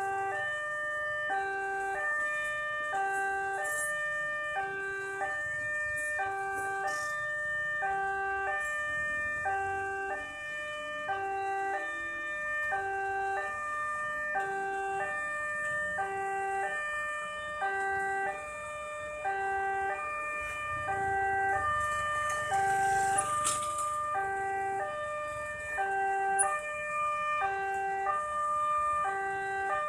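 Railway level-crossing warning alarm: an electronic two-note signal alternating high and low notes about every three-quarters of a second, sounding while the barrier is down ahead of an approaching train. A brief rush of noise about two-thirds of the way through.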